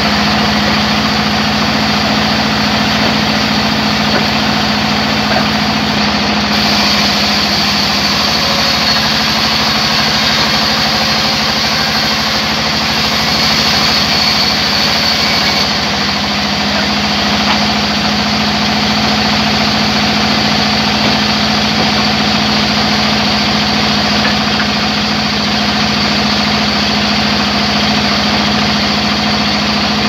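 Large sawmill band saw running steadily, its blade cutting through a log, with a constant low hum. A higher whine joins from about six seconds in and drops away at about sixteen seconds.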